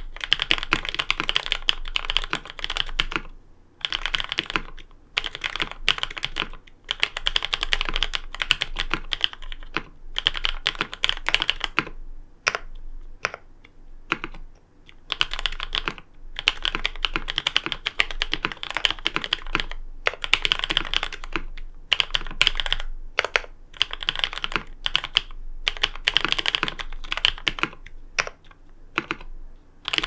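Typing on a Geonworks Frog TKL custom mechanical keyboard with an aluminium plate, tape-modded PCB and lubed Cherry MX Black linear switches (Kailh Pro Burgundy stems, 66 g springs): rapid runs of keystrokes in bursts, with short pauses a few times.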